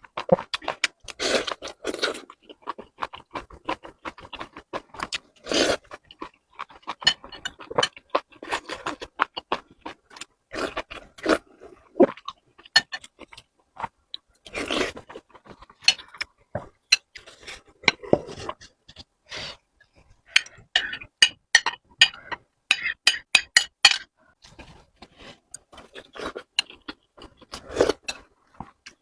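Close-miked eating: irregular chewing and biting, with wet mouth clicks, short crunches and scrapes.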